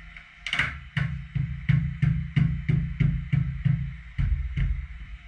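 A rapid run of about a dozen heavy, drum-like thumps, roughly three a second, the first one the sharpest, each with a low booming ring.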